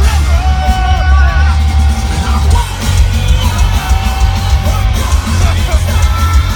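Heavy metal band playing live and loud: a singer holds long sung notes over distorted electric guitars, heavy bass and drums.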